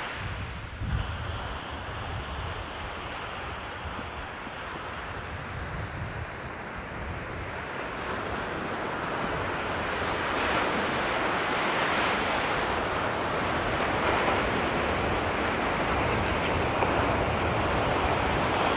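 Ocean surf washing up the beach, a steady hiss that swells louder about halfway through, with wind buffeting the microphone.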